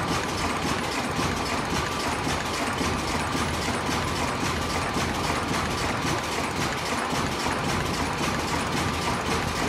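Automatic ultrasonic face mask production machine running at speed: a rapid, even mechanical clatter of repeating clicks over a steady tone.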